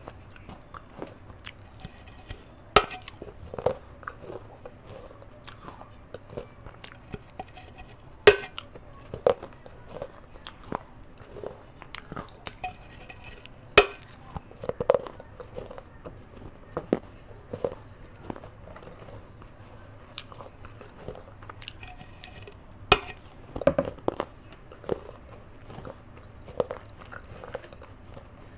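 Close-miked biting and chewing of a baked clay pot's rim. Four loud, sharp cracks come as pieces snap off, with many smaller gritty crunches of chewing in between.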